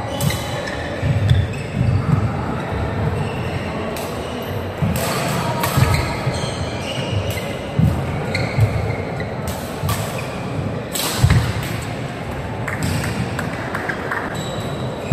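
Badminton singles rally on an indoor court: sharp racket strikes on the shuttlecock, short high shoe squeaks and thudding footfalls on the court, ringing in a large hall.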